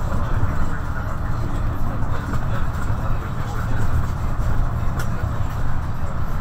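MAN NL263 low-floor city bus driving along a road, heard inside the bus near the front: a steady low engine drone with road and tyre noise. There is a single short click about five seconds in.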